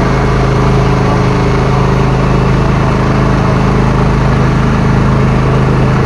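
Motorboat engine running at a steady speed, a constant low hum with no change in pitch.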